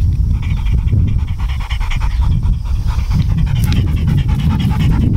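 A chocolate Labrador retriever panting hard and rapidly, close by, in an even rhythm, over a steady low rumble.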